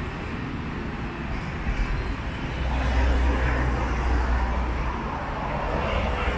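Road traffic running past, with a deep engine rumble that grows loud about two and a half seconds in and eases off near the end.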